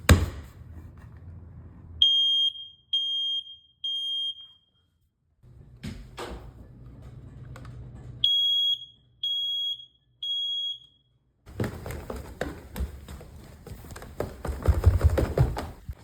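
Household smoke alarm sounding on test: two groups of three loud, high, steady beeps with a pause between, the temporal-three pattern of a smoke alarm in alarm. A few clicks come before, and a few seconds of knocking and rustling follow near the end.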